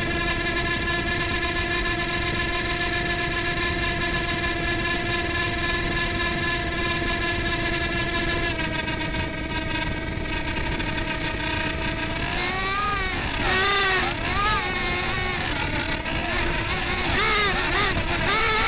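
Micro quadcopter's motors and propellers whining steadily, picked up by its own onboard camera. About eight and a half seconds in the pitch steps down slightly, and from about twelve seconds in it swoops up and down over and over as the throttle changes.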